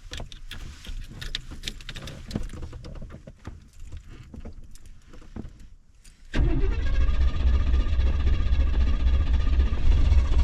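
Scattered clicks and knocks inside a Chevy car, then about six seconds in its engine catches suddenly and runs with a steady low rumble.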